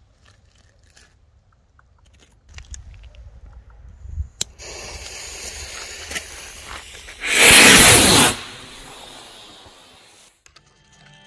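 A firework rocket's fuse sputters and hisses with a click as it catches, then the rocket motor fires with a loud rushing hiss for about a second. The hiss fades over the next two seconds and cuts off.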